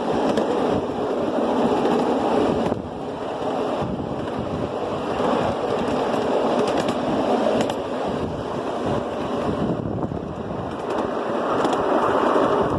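Ride-on miniature railway cars rolling along the track: a steady rumble of wheels on rail with faint clicks, and wind on the microphone.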